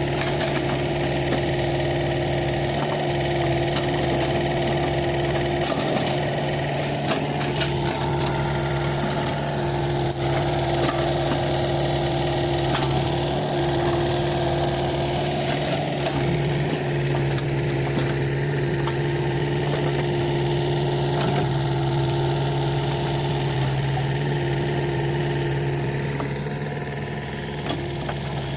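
Kobelco SK50P mini excavator's diesel engine running steadily, with scattered clanks and knocks from the machine working. The engine eases off slightly near the end.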